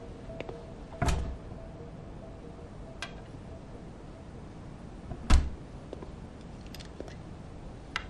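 Bottles and a glass-fronted liquor cabinet being handled: scattered light clicks and knocks, with two heavier thuds about a second in and about five seconds in, the second the loudest.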